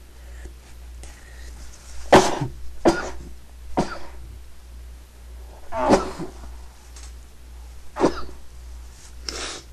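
A person's stifled sneezes: six short, sharp bursts at uneven gaps, held back in an attempt to keep quiet.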